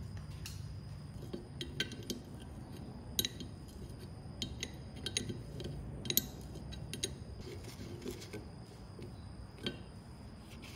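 Irregular light metallic clicks and clinks as gloved fingers handle a small rusty bolt and nut inside a vise body, over a steady low hum.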